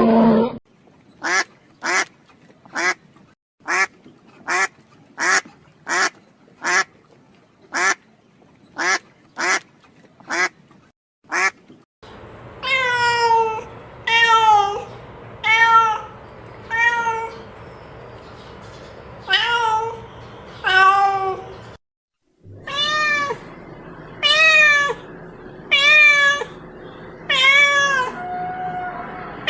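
A cat meowing over and over: first a run of short, quick mews about one every second, then longer, arched meows.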